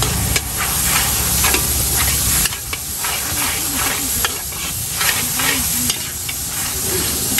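Kuey teow noodles and bean sprouts sizzling in a hot wok while a wok spatula stirs and tosses them, scraping and clanking against the pan over and over.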